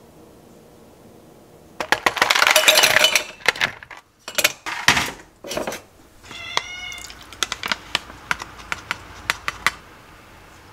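Ice cubes rattling into a stainless-steel tumbler, then a few sharp clunks and a short wavering high tone, followed by quick light clinks of ice against the metal cup as the iced coffee is stirred with a straw.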